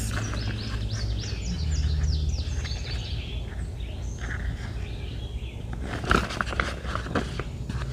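Birds chirping in the first couple of seconds over a low steady hum. About six seconds in come a few sharp clicks and knocks with rustling, as a canvas seat is worked onto the metal poles of a collapsible camping chair frame.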